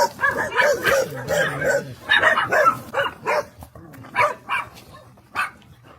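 Dogs barking in a quick run of short barks, thinning out to a few scattered barks over the last couple of seconds.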